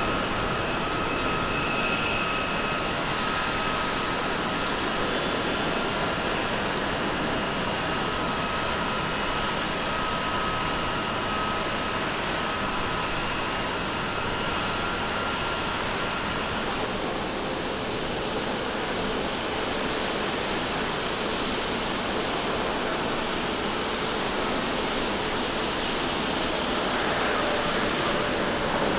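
Jet engines of a four-engine Boeing 747 climbing out after takeoff: a steady rush of jet noise with a thin whine that drops out about halfway through. Near the end, louder jet noise from another airliner comes in.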